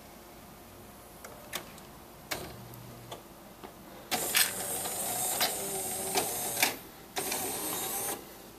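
Jura Giga5 superautomatic espresso machine at the end of a coffee cycle: a few soft clicks, then mechanical whirring and hissing about four seconds in, stopping briefly and starting again for about a second near the end.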